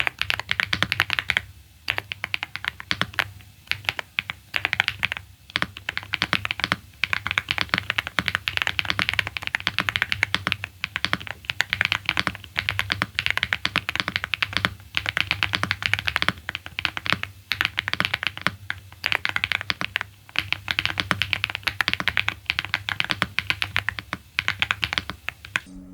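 Mchose GX87 mechanical keyboard with KTT Vintage White switches being typed on quickly and continuously. The rapid key strokes come in runs broken by brief pauses every second or few.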